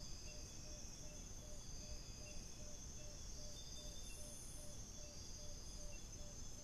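Night-time tropical forest insect chorus: a steady high shrill of many insects, with a soft lower note repeating about three times a second under it.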